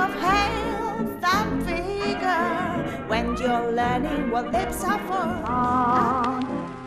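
Music with a singing voice, the held notes sung with a wavering vibrato over instrumental accompaniment.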